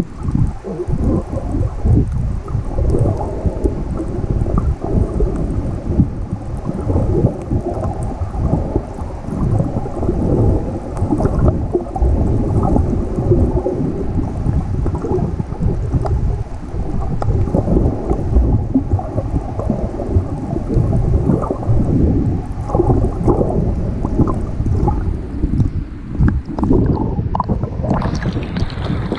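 Underwater rumble and sloshing of rough, choppy sea water against a camera held below the surface, dense and muffled. About 28 seconds in the camera breaks the surface and brighter splashing and wind noise come in.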